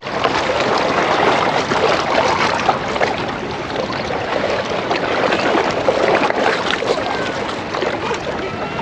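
Seawater washing and lapping at the shore, a steady rushing hiss that starts abruptly.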